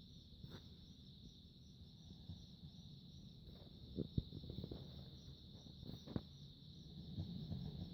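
A dog snoring softly in its sleep: a faint low rumble of breathing, with a few soft clicks. A steady high-pitched trill runs underneath throughout.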